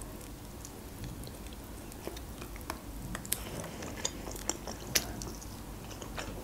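A person chewing a mouthful of rotisserie chicken wing close to the microphone, with scattered short, sharp mouth clicks.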